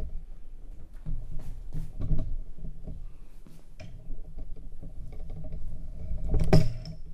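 Handling noise from a saxophone being readied: scattered soft clicks of the keys and light knocks, with one louder knock about six and a half seconds in. No note is played.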